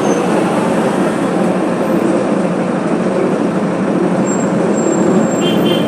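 Diesel engine of a Marcopolo Torino bus on a Mercedes-Benz OF 1721 BlueTec 5 chassis, running steadily.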